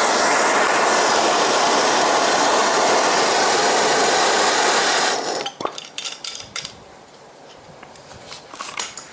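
Steady roar of a homemade blast furnace firing, cutting off abruptly about five seconds in. Scattered light clicks and knocks follow.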